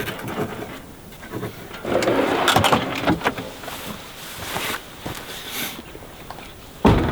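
Camp-kitchen handling noises: a stretch of rustling about two seconds in, scattered light clicks and knocks, and one loud dull thump near the end.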